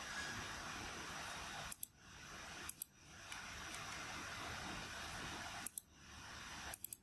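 Computer mouse scroll wheel clicking in four short groups of two or three quick ticks, over a faint steady hiss of microphone background noise that dips briefly after each group.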